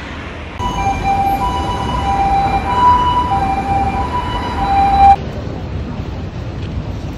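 Ambulance siren in Japan sounding its two-tone hi-lo pattern, a higher and a lower tone taking turns about every half second, over low traffic noise. It starts about half a second in and cuts off abruptly about five seconds in.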